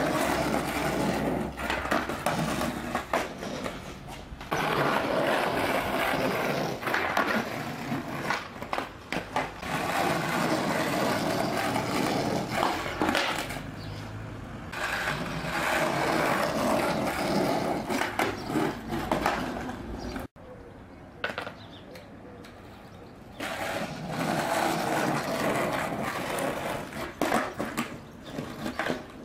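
Skateboard wheels rolling over rough asphalt, a steady gritty rush, with a few sharp clacks of the board hitting the ground. The rolling drops away about twenty seconds in and starts again a few seconds later.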